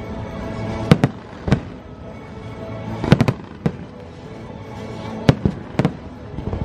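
Aerial fireworks bursting with sharp bangs at irregular intervals, several in quick clusters, over the fireworks show's music soundtrack.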